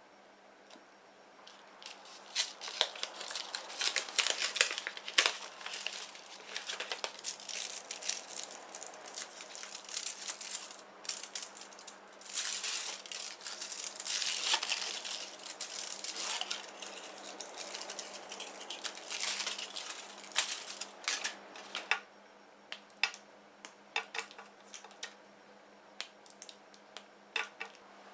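Aluminium foil wrapper on a chocolate bar crinkling and tearing as it is peeled open by hand, in long stretches of dense crackling. Near the end, scattered light taps as paper baking cups are set down on a metal tray.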